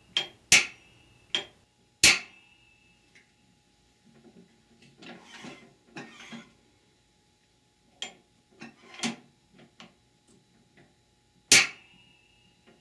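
Parking pawl of a Ford E4OD/4R100 automatic transmission pushed by hand and snapped back by its return spring against the cast aluminium case: a series of sharp metallic clicks, several with a brief ring. About midway comes a softer scraping rustle as the output shaft is handled.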